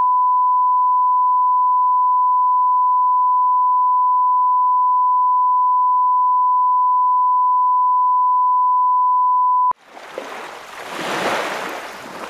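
Steady 1 kHz line-up test tone, the reference beep laid at the head of a broadcast tape, held at one pitch for nearly ten seconds and then cutting off suddenly. A rushing noise then swells and fades over the last couple of seconds.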